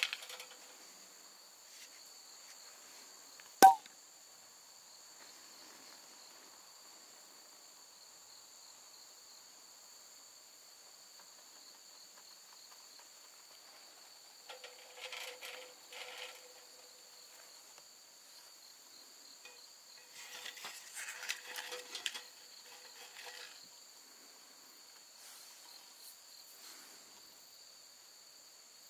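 Crickets chirring steadily in a high, unbroken drone. A single sharp click comes about three and a half seconds in, and there are two short spells of rustling about halfway and two-thirds of the way through.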